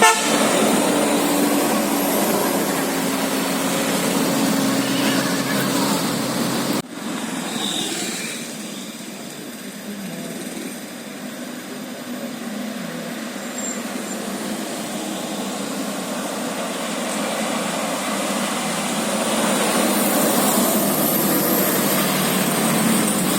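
Road traffic: passing vehicles with engine and tyre noise. About seven seconds in the sound cuts abruptly to a quieter stretch, which builds up again towards the end as more traffic approaches.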